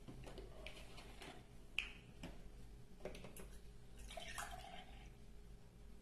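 Faint scattered clicks and knocks of kitchenware being handled around a plastic blender jug, with a short noisy sound about four seconds in.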